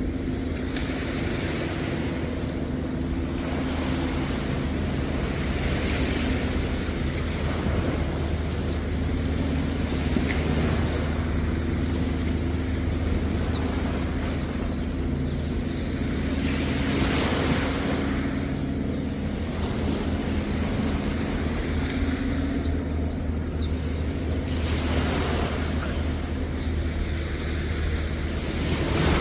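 Sea waves washing onto a beach, the surf swelling up every several seconds, over a steady low engine hum.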